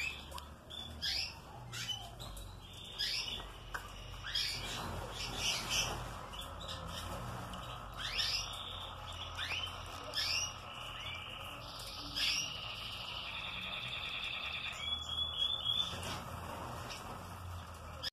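Canaries chirping: short sweeping calls every second or two, with a fast buzzy trill about two-thirds of the way through, over a faint low hum.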